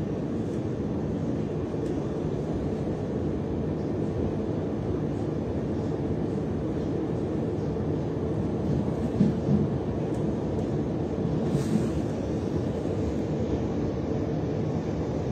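Steady running rumble of a Transilien line N electric commuter train heard from inside the carriage. A few brief louder knocks come about two-thirds of the way through.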